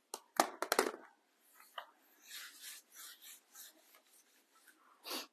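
A few light knocks in the first second, then soft rubbing strokes of a cloth wiping down a small wooden cutting board, with a short louder hiss near the end.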